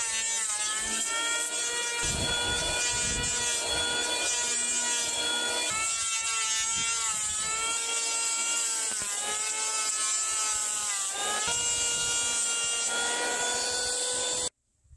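Electric hand planer running and cutting along a warped square timber to true it. Its motor whine sags in pitch as the blades bite and picks up again several times, then cuts off abruptly near the end.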